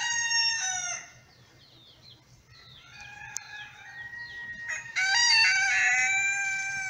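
Rooster crowing: one long crow ends about a second in, and another long crow starts about five seconds in. Faint short chirps come in between.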